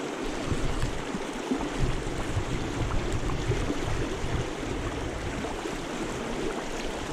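River current rushing over a rocky riffle: a steady wash of moving water, with uneven deep rumbling mixed in.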